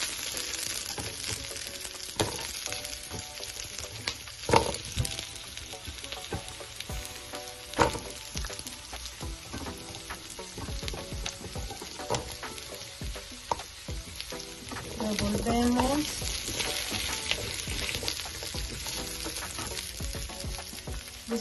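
Sliced carrots, onion and garlic sizzling steadily in hot oil in a frying pan, with a few sharp knocks of a utensil stirring against the pan.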